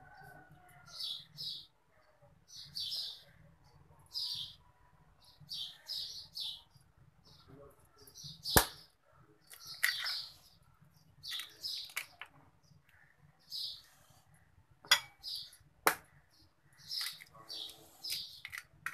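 Eggs cracked one at a time against a bowl rim: a sharp crack about eight and a half seconds in and two more around fifteen and sixteen seconds in. A bird chirps repeatedly throughout in short, often paired calls.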